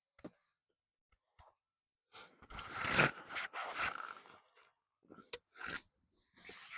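Rustling and scraping of fishing gear being handled, about two seconds long, followed by a few short clicks and knocks.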